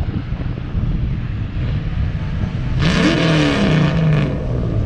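A car's engine revving up hard as it accelerates along the road, its pitch rising then easing off about three seconds in, over a steady low rumble of traffic.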